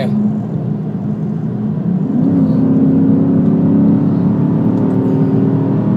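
Hemi V8 engine running at a steady high idle, then revved up about two seconds in and held at higher revs, louder.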